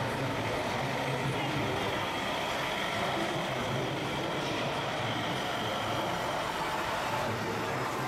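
Steady truck-like engine rumble from 1/14-scale RC construction vehicles at work, over a continuous noisy background.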